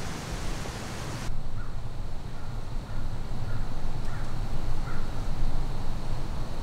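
Outdoor woodland ambience. A steady hiss cuts off suddenly about a second in, leaving a low, uneven rumble with a few faint bird calls.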